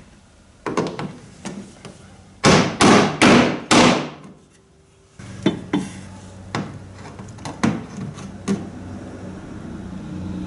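Hammer blows setting a copper boat rivet and its rove in clinker planking. A few light taps come first, then four hard, ringing strikes in quick succession, then lighter metal clicks and taps as the tools are worked on the rivet.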